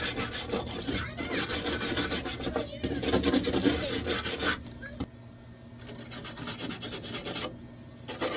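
Welder stitch-welding a steel patch panel into car sheet metal: separate bursts of steady crackling, each lasting a second or two to about three seconds, with short pauses between. Three welds run in full and a fourth starts near the end.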